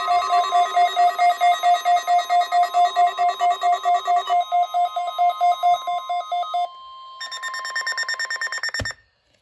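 Weather radio warning alarm sounding during a weekly test: rapid electronic beeping, about five beeps a second, over a steady tone. Near the end the beeping changes to a different pattern, then everything cuts off suddenly.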